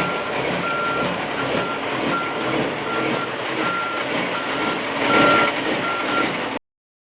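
A vehicle's backup alarm beeping about twice a second over steady engine noise, cutting off abruptly near the end.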